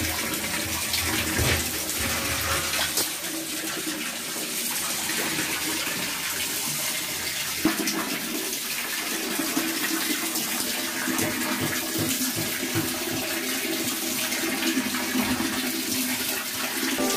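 Water from a hose spraying and splashing onto a dog's wet coat and the floor, a steady rushing hiss. About eight seconds in, a low steady hum joins it.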